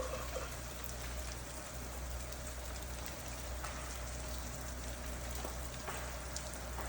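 Steady patter of water drops falling, with a few faint ticks scattered through.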